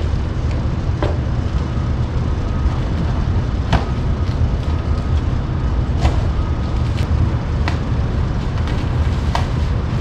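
Taped cardboard shipping box being opened by hand, with a few sharp snaps of tape and cardboard, over a steady low rumble.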